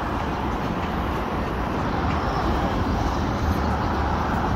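Street ambience of steady road traffic, a continuous hum of passing vehicles that grows slightly louder near the end.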